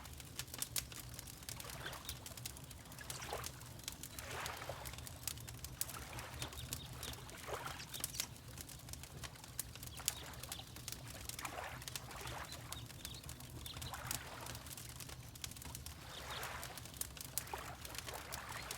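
Water lapping in gentle swells every couple of seconds, mixed with the pops and crackles of a wood fire in a fireplace, over a steady low rumble.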